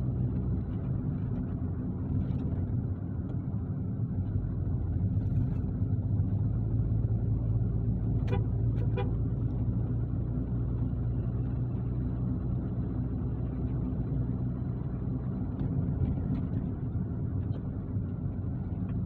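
Car engine and road noise heard from inside the cabin while driving: a steady low hum. About eight seconds in there are two short beeps, close together.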